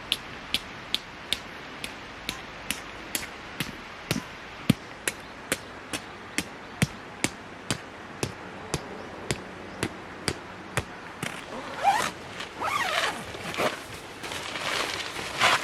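A steady series of sharp taps or clicks, about three a second, followed about twelve seconds in by irregular rustling and scraping.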